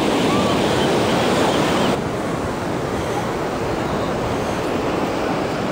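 Ocean surf washing up the beach, a steady rushing noise, with wind on the microphone. The noise drops abruptly to a slightly lower level about two seconds in.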